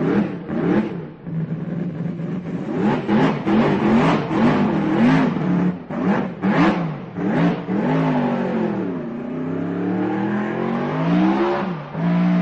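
BRM H16 sixteen-cylinder racing engine being blipped: the revs jump up and drop back about a dozen times in quick succession. Near the end it makes one slower, longer rise and fall before settling on a steady note.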